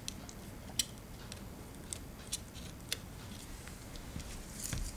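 Light clicks and ticks of a small metal tool and fingers working the rubber drive belt onto the pulleys of an opened floppy drive, a few sharper clicks spread through it and a quick cluster near the end.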